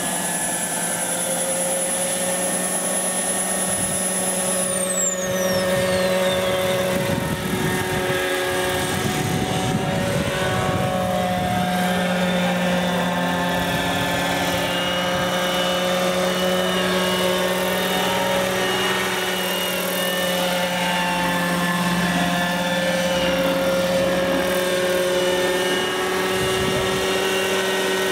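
Radio-controlled scale Agusta A119 Koala model helicopter in flight: a steady engine and rotor drone whose pitch wavers a little as it manoeuvres, with a high whine that slides down and fades about five seconds in.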